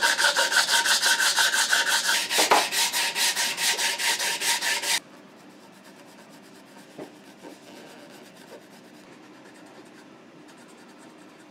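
Sandpaper on a hand block rubbed quickly back and forth over the wood of a rifle stock, about five strokes a second, stopping abruptly about five seconds in. After that only quiet room tone with faint light scratches of a pencil tracing a template.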